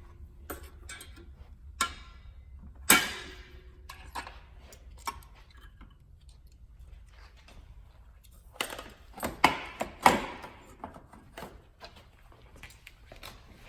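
Sharp metallic clicks and clanks of exhaust springs being unhooked from a snowmobile's exhaust pipe with a spring puller tool. There are a few separate snaps, one with a short ring after it, and then a cluster of louder clanks about two thirds of the way through.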